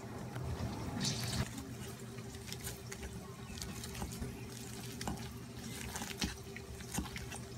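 A masher squashing soft microwaved kabocha squash in a stainless steel bowl: wet squelches with scattered clicks and taps of the masher on the bowl, over a faint steady hum.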